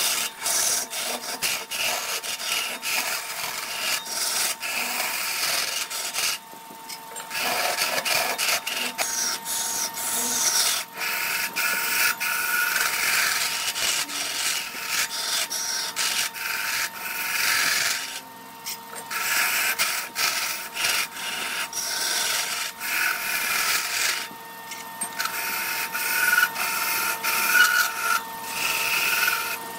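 A lathe tool scraping and cutting into spinning wood: a rough, rasping hiss in repeated passes, broken by three short pauses, with a steady whine underneath.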